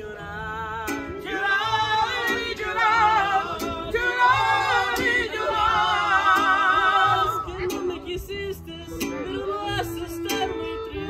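Live mariachi band: two men sing together with a wavering vibrato over strummed vihuela and guitarrón bass. The singing stops about seven seconds in and the strings carry on, with a violin.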